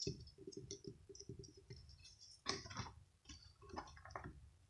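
Faint handling noise of stiff sheets of paper-backed mother-of-pearl: a string of light clicks and ticks as a sheet is slid and picked up off a glass tabletop, with a few louder crackles about midway and near the end as the sheet is flexed.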